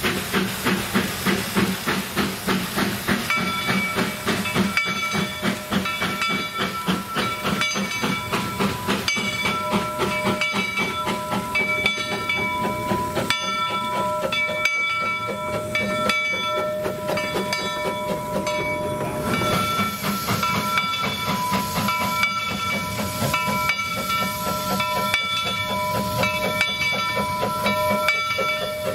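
Two-foot-gauge steam locomotive Monson No. 3, a little Forney tank engine, working along with a steady rhythmic exhaust chuff and steam hiss. From about three seconds in a locomotive bell rings over and over as the trains meet.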